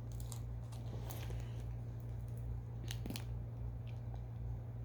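A few faint clicks and rustles from handling a plastic Push Pop Gummy Roll dispenser, over a steady low electrical hum.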